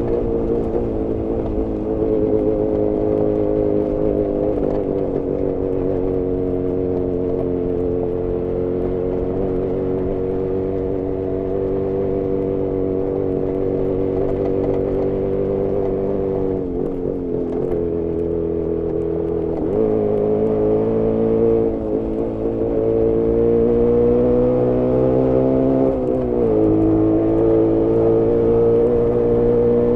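Jawa 350 two-stroke twin engine running under throttle, recorded onboard. The note is steady for the first half, then drops sharply several times in the second half and climbs back each time. The engine is running very lean and lacking power.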